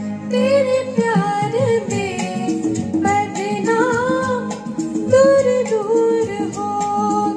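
A woman singing a Hindi film song into a handheld microphone over a recorded backing track, her voice carrying the melody.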